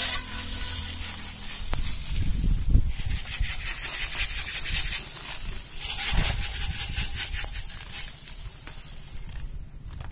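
Salt grains pouring from a sack into an earthing pit: a hissing, grainy patter that comes in a few surges and dies away near the end, with some low thumps underneath.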